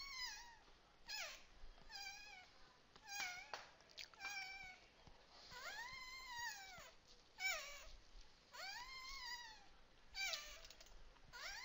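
A cat meowing over and over, about ten calls roughly a second apart, each rising then falling in pitch, one drawn out longer about halfway through.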